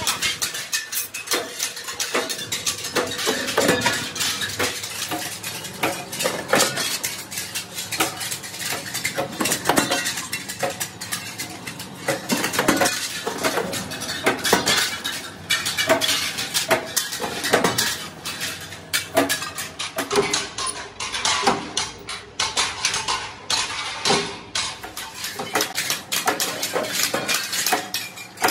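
Curved steel chaff-cutter blade blanks clinking and clattering against one another as they are handled and stacked, in quick irregular metallic knocks.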